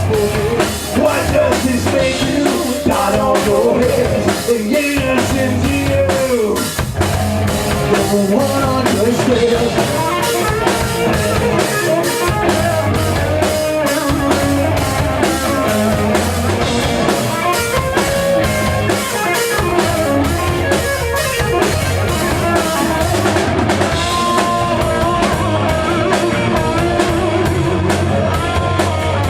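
Rock band playing live: a drum kit keeps a fast, dense beat under electric guitar.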